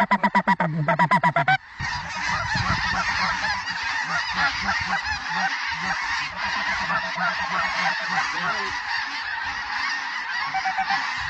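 Goose calls: a rapid, evenly spaced run of loud honks for the first second and a half, which stops abruptly. Then a large flock of snow geese calls continuously overhead, many birds clamouring at once.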